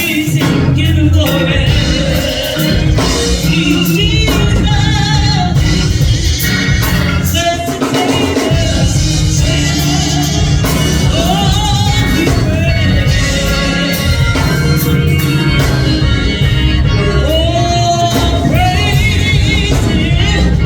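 Gospel praise song with singing over a live band with bass, drums and keyboard.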